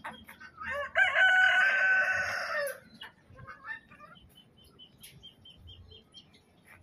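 A rooster crowing once: a single loud crow about two seconds long, starting about a second in.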